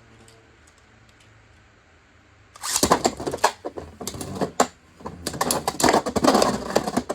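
Two Beyblade spinning tops clashing and rattling against each other and the plastic stadium: a quiet start, then from about three seconds in a fast, dense run of sharp clicks and knocks.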